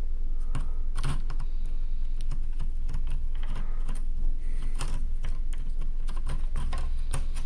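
Irregular small clicks and taps of hard plastic and metal parts being handled as a laptop's CPU cooler is fitted back over the processor, over a steady low hum.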